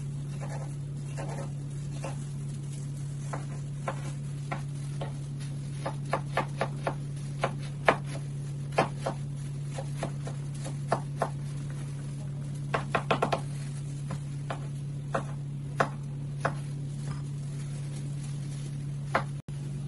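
Kitchen knife chopping vegetables on a plastic cutting board: irregular sharp knocks, with a quick run of strokes about thirteen seconds in. A steady low hum runs underneath.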